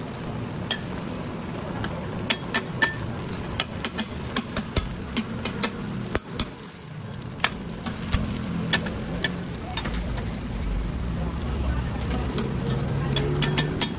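Street-food stall cooking sounds: irregular sharp clinks and taps of utensils over a steady frying sizzle.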